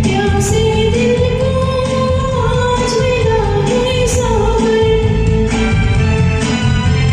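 Karaoke singing of a Bollywood film duet: a voice holding long, gliding notes over the recorded backing track.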